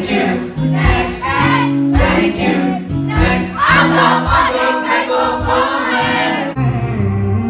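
Live boy band performance: several male voices singing together over acoustic guitar. About six and a half seconds in the singing breaks off abruptly, leaving a low, steady bass sound.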